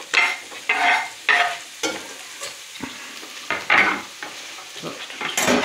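Chopped onions sizzling in hot oil in a frying pan, while a wooden spoon stirs spaghetti in a steel pot of boiling water in a series of uneven strokes.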